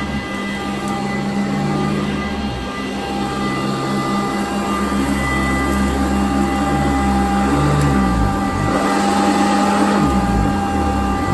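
Sanitaire upright vacuum cleaner running on carpet: a steady motor whine with a low hum that shifts in pitch a couple of times near the end, as the load on the motor changes.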